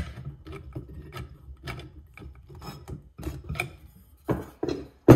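Metal vanity light fixture being turned and hand-tightened on a wooden workbench: irregular scraping and clicking as its threaded arm is screwed down, with a sharp knock near the end.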